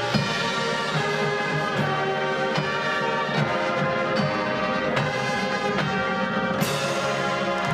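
High school marching band playing live: sustained brass chords over regular percussion strikes about every eight-tenths of a second, with a sudden bright crash near the end.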